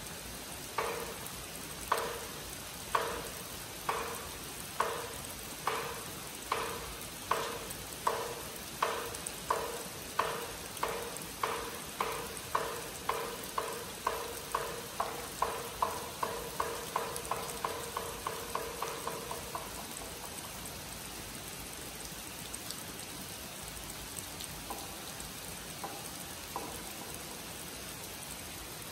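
A temple's wooden clapper is struck over and over, starting at about one knock a second and speeding up into a fast roll that stops about two-thirds of the way through. This is the call for the monks to return to zazen. Steady heavy rain falls on the pond and foliage throughout, and a few faint knocks follow near the end.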